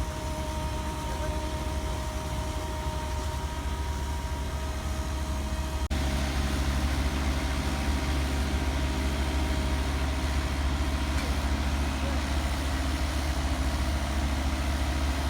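Heavy paving machinery engine running steadily with a low hum. About six seconds in the sound cuts and comes back louder.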